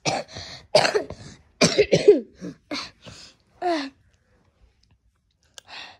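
A person coughing hard: a string of about eight short, harsh coughs over the first four seconds, then a pause.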